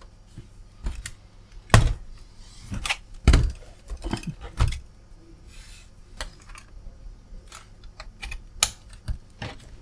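Laptop handling noises: sharp knocks and plastic clicks as a laptop is turned over on a bench and a SO-DIMM RAM module is pushed into its slot, with a louder snap near the end as the module seats.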